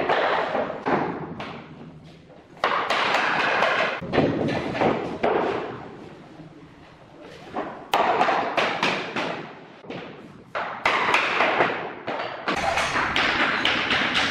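Floor planks being knocked into place with a tapping block: runs of sharp knocks and thuds in several clusters, with short pauses between them.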